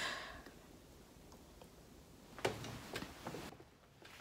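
Faint clicks and light rustling from a plastic cup with a straw being handled, mostly in a short cluster about two and a half to three and a half seconds in.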